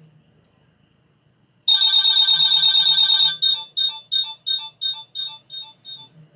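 Nokia 3220 mobile phone playing a ringtone through its speaker: a fast, bell-like trill starts about a second and a half in and runs for about a second and a half, then breaks into a string of short beeps, about three a second, that fade away.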